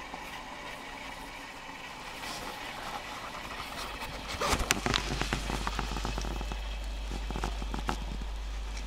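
Small homemade wood lathe running: its electric motor hums steadily while a cutting tool scrapes a spinning wooden blank, with a crackle of chips. About halfway through the cut gets louder, with a burst of rapid scraping clicks.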